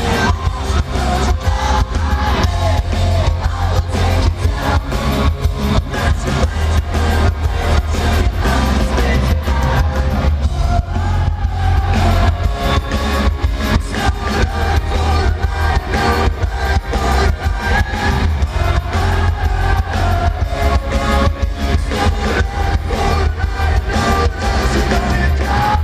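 Pop-punk band playing live: loud electric guitars, a pounding drum kit, heavy bass and a singing lead voice, with no break.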